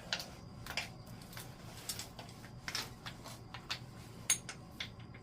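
Small metal hardware and hand tools clicking and clinking irregularly, with about a dozen light taps and one brighter ringing clink about four seconds in.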